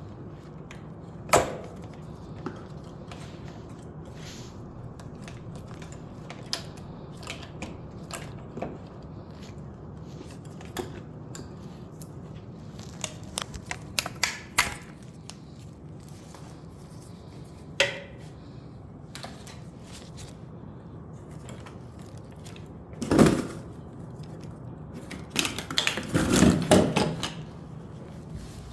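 Scattered clicks, taps and knocks of hands working on a refrigerator's ice maker assembly, over a steady low hum. There is a sharp knock about a second and a half in, another about 23 seconds in, and a longer rattling clatter a few seconds before the end.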